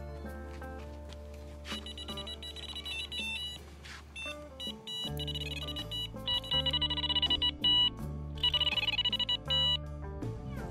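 Electronic carp bite alarms on a rod pod beeping in quick, irregular runs of high beeps, starting about two seconds in and stopping near the end. Background music with a steady bass runs underneath.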